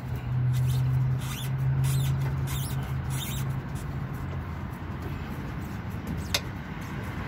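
Repeated short squeaks and scrapes as the stuck lower end of an old rear shock absorber and its rubber bushing are worked off the mounting stud. A steady low hum runs through the first half, and there is one sharp click about six seconds in.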